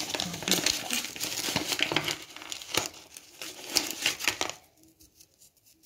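Crinkling of a plastic packet of dried Italian herbs as the herbs are shaken out over tomatoes, a dense rustle that stops about four and a half seconds in.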